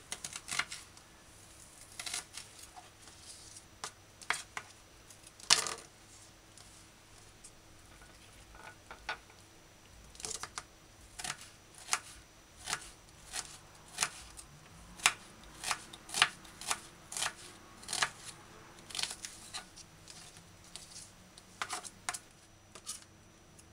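A kitchen knife slicing an onion on a plastic cutting board, each cut ending in a sharp tap of the blade on the board. The taps are scattered at first, then come fairly evenly, about one every two-thirds of a second, through the second half.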